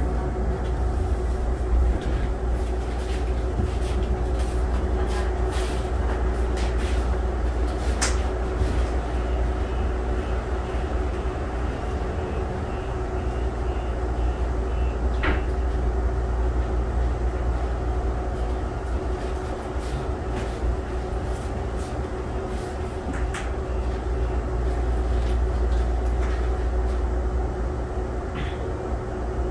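Cabin of a Calgary C-Train Siemens S200 light rail car standing at a station: a steady low rumble and constant hum from its onboard equipment, with a few sharp clicks.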